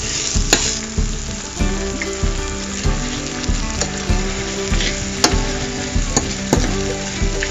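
Onion, tomato and dried red chillies frying with a steady sizzle in a stainless steel pan on a low flame, while a metal spoon stirs and scrapes against the pan now and then with sharp clicks.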